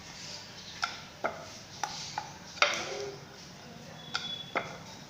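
Rolling pin knocking and clicking against a rolling board while a sheet of dough is rolled out: about seven sharp, irregularly spaced knocks.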